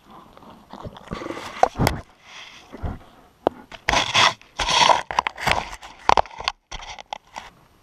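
Brown bear right at the tree-mounted camera box, scraping and snuffling at it in uneven, noisy bursts with sharp clicks in between, loudest about a second in and again around four to five seconds in.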